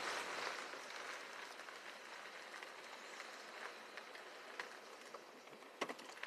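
Faint, steady outdoor hiss with scattered light ticks and two sharper clicks near the end.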